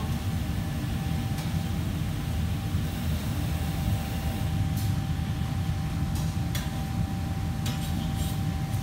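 Kitchen background noise: a steady low machine hum with a faint steady whine, and a few light clinks and clatters of kitchenware in the second half.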